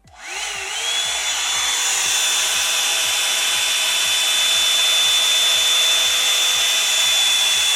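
Revlon One-Step hair dryer brush switched on: the motor spins up with a rising whine over about a second, then runs steadily with a high whine over the hiss of rushing air.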